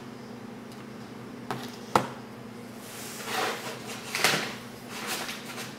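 Hands handling trading cards and packaging on a desk: a sharp click about two seconds in, as of a hard plastic card holder set down, then a few soft scraping and rustling swishes.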